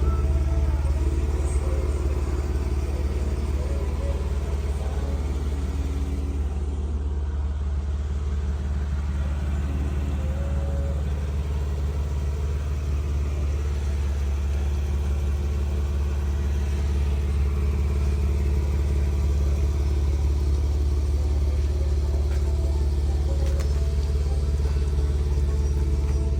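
A motor vehicle running with a steady low drone, its pitch wavering slightly but the level holding even throughout.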